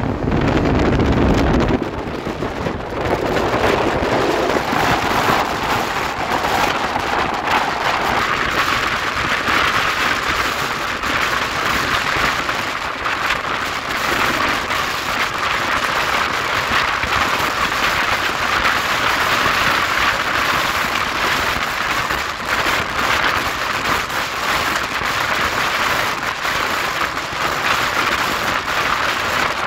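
Express train running at speed, heard from on board: a steady rush of wind with dense wheel-on-rail clatter. A heavier low rumble sounds for about the first two seconds.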